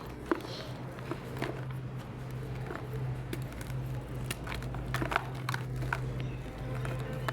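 Blocks of gym chalk crumbling and crunching in the hands, irregular crisp crackles and snaps. A steady low hum runs underneath.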